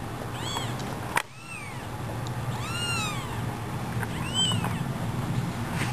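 Eight-day-old kitten mewing: about four thin, high cries, each rising and falling in pitch. A sharp knock comes about a second in.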